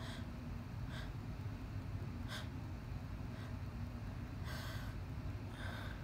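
A woman's short, faint breaths, about six of them with a longer one around the middle, in the pause between sneezes of an allergic sneezing fit.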